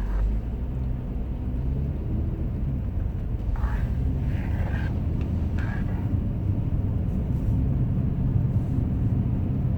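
Steady low rumble of a 2010 Acura MDX driving on a snowy, icy road, heard from inside the cabin: the V6 engine and tyre noise.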